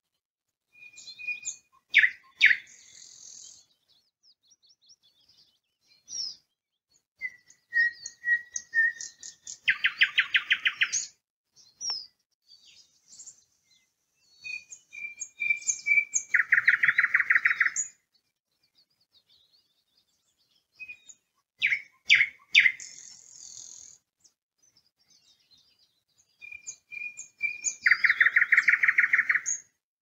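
Nightingale singing in separate phrases a few seconds apart: short piping notes and clicks lead into a loud, fast rattle of repeated notes.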